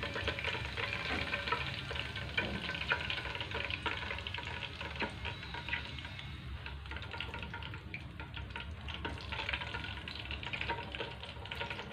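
Curry leaves frying in a kadai of hot oil: a steady crackling sizzle, with a steel slotted spoon stirring and scraping through the oil.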